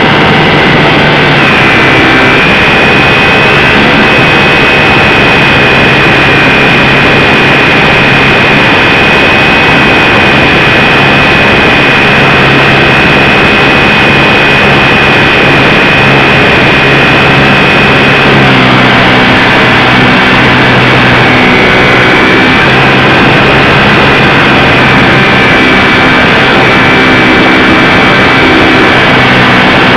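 HobbyZone Super Cub RC plane heard from its onboard camera in flight: the electric motor and propeller give a loud, steady high whine over a rushing noise. About two-thirds of the way through the whine dips slightly in pitch, then levels out again.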